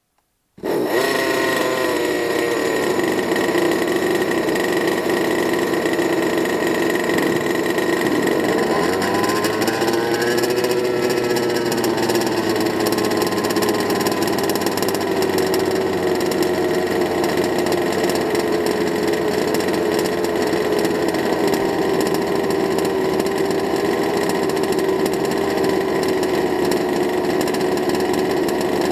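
Petrol two-stroke RC car engines with tuned pipes idling: an RCMK 57cc twin and a 26cc Fuelie. The sound cuts in abruptly about half a second in; the idle pitch wavers a couple of seconds in and again around ten seconds in, then holds steady.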